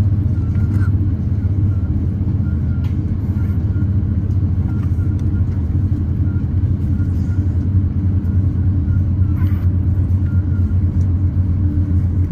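Cabin noise of an Airbus A350-900 taxiing: a steady low rumble and hum from its Rolls-Royce Trent XWB engines at taxi power, heard from a seat inside the cabin, with a few faint clicks.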